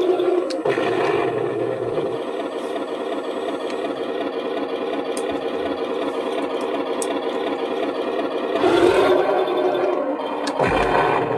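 Heng Long 1/16 T90 RC tank's sound unit playing a simulated tank engine idling, a steady buzzy engine note from the model's small speaker. It swells louder twice near the end.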